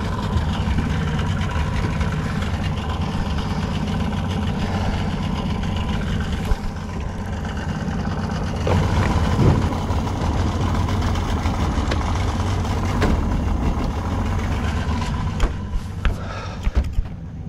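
Small boat's outboard motor running steadily, a low continuous drone with a few brief knocks.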